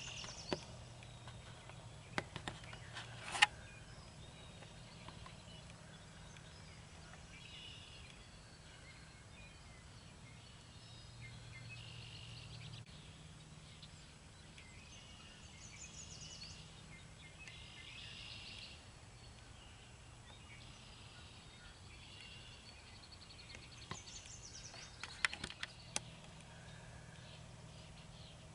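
Quiet field-edge ambience with faint, scattered songbird calls. A few sharp clicks come near the start, the loudest about three and a half seconds in, and another small cluster comes near the end.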